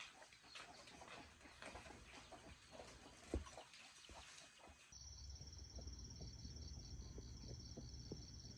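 Faint background: scattered short clicks and chirps, then about five seconds in a steady low hum and a fast, even, high-pitched pulsing begin abruptly.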